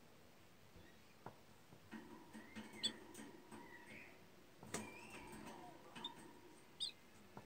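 A pair of budgerigars twittering softly, with short high chirps and warbling squeaks from about two seconds in, and a few faint clicks.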